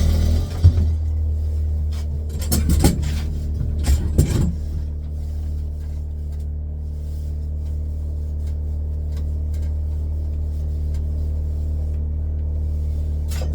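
Steady low motor hum, with a few knocks and bits of handling clatter in the first several seconds and one more knock near the end.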